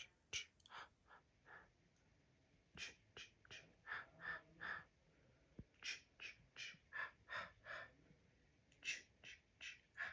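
Breathy whispered syllables, each short and sharp, in four quick rhythmic runs of about five to seven: a horror-style whisper sound effect.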